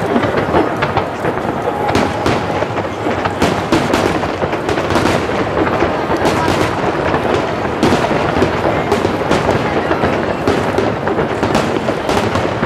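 Aerial firework shells bursting in a dense barrage, many bangs overlapping with no pause between them.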